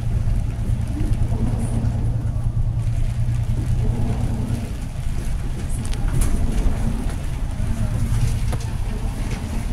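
Heard from inside the cabin, a bus engine and tyres on the road make a steady low drone while it drives along. A few sharp clicks sound over it, the clearest about six seconds in and again near the end.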